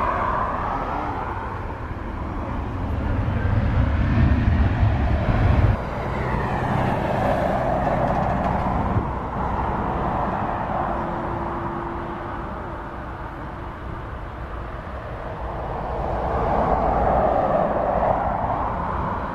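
Jet airliners taxiing, their turbofan engines running at low power: a steady rushing engine noise that swells and fades as the aircraft move past. It changes abruptly about six seconds in, then rises again near the end as the second jet comes closer.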